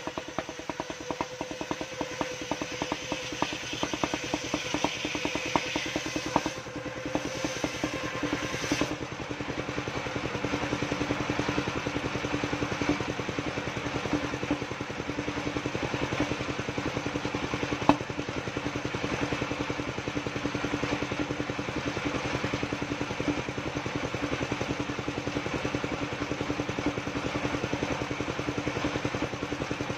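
Engine of a portable circular-saw sawmill running steadily with a fast chugging beat, driving the saw blade. A single sharp knock about eighteen seconds in.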